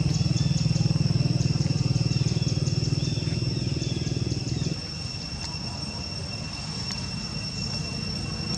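A motor-vehicle engine running nearby: a low, steady, finely pulsing drone that drops away abruptly about halfway through. A steady high-pitched insect whine runs underneath throughout.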